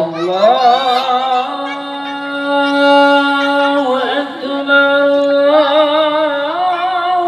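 Muezzin's call to prayer (adhan) sung by one man through the mosque's loudspeaker system, in long held notes with wavering melismatic ornaments and a short break for breath about four seconds in.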